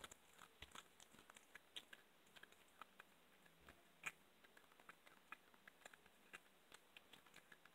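Domestic cat chewing raw meat and bone from a bowl: faint, irregular wet clicks and crunches of the teeth, with one louder click about four seconds in.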